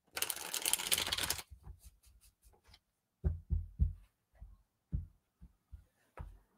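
A tarot deck riffle-shuffled, a dense rapid patter of cards for about a second and a half. Then the cards are handled and set down with scattered soft taps and thumps.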